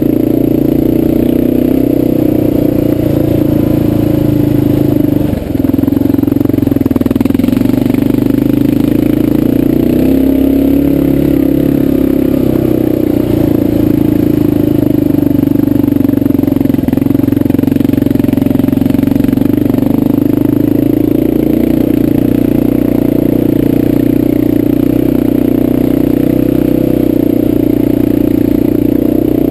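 Dual-sport motorcycle engine running steadily under load while riding up a dirt trail, with a low, even drone. The engine note briefly drops about five seconds in.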